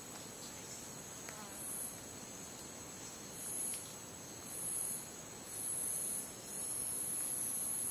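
Rainforest insects at night: a steady high-pitched insect drone, joined by a second, even higher insect buzz that pulses in four short bursts before holding steady near the end.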